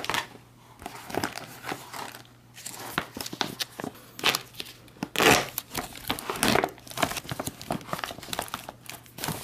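Plastic outer bag of an LRP (Long Range Patrol) food packet being torn open and pulled apart by hand. It crinkles and tears in irregular bursts, loudest about five seconds in.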